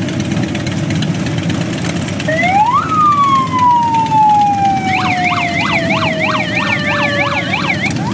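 A group of Harley-Davidson motorcycles idling with a steady low rumble. About two seconds in a siren starts: a rising wail that then falls slowly, joined from about halfway by a fast up-and-down yelp several times a second.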